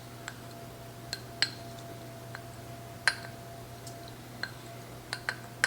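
A measuring spoon clinking and tapping against a container while tablespoons of chili powder are scooped out: scattered light clicks, with a quick cluster of taps near the end.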